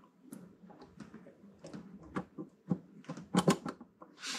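Small clicks and taps of hardware being handled as a quarter-inch jack and its washers are refitted on a drum machine's rear-panel circuit board, with a quick cluster of clicks about three and a half seconds in.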